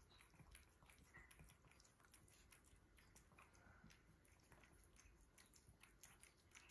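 Siberian kitten chewing raw food, a faint, irregular run of small chewing clicks.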